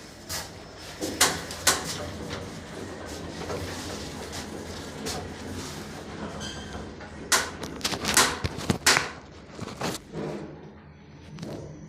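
Loud bangs and clunks inside an elevator car: two sharp bangs about a second in, then a cluster of bangs between about seven and nine seconds in, over a steady hum.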